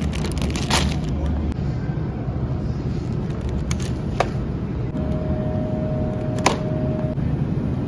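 Low rumble and rattle of a wire shopping cart, with plastic-wrapped groceries being handled inside it and a few sharp clicks. A steady beep-like tone sounds for about two seconds past the middle.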